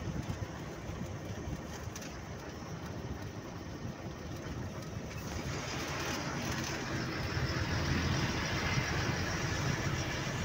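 Steady road and engine noise of a vehicle moving along a highway, heard from inside, growing a little louder in the second half.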